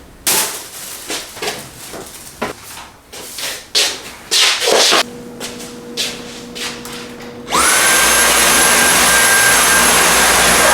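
Scattered knocks and handling sounds. Then, about seven and a half seconds in, an electric motor spins up with a quick rising whine and runs loud and steady.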